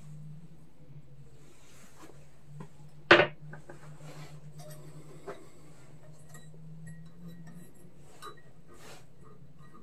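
Metal clinks and small knocks of tools and parts being handled during lawn mower disassembly, with one loud metallic clank about three seconds in, over a steady low hum.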